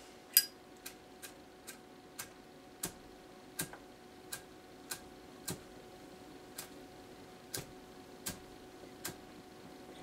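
Zippo lighter's lid clicking open and shut, about fourteen sharp clicks at irregular half-second to one-second spacing, the first the loudest.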